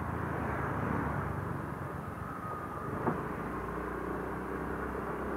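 Motor scooter engine running with road and wind noise as the scooter is ridden, with one brief tap about three seconds in.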